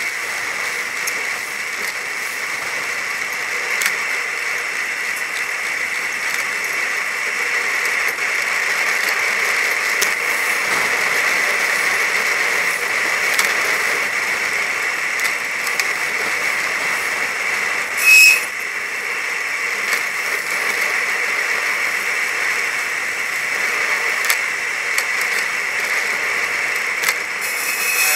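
Steady rushing noise from a helmet camera on a bicycle ride through wet traffic: wind and wet-road noise on the microphone, with a faint steady high whine underneath. One short loud sound stands out about eighteen seconds in.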